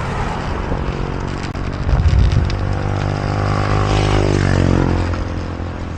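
A motor vehicle's engine passing close by on the road, growing louder, then its pitch drops and it fades as it goes past.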